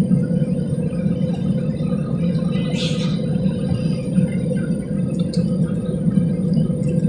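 Airliner cabin noise while climbing: a steady low drone of jet engines and airflow with a steady hum above it. There is one brief hiss about three seconds in.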